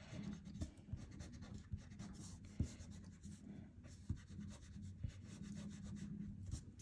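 Pencil-top eraser rubbing back and forth on drawing paper: a faint, quick run of scrubbing strokes.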